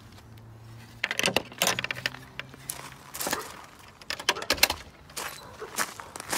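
A bunch of keys jangling and clinking in the hand, in several short bursts starting about a second in.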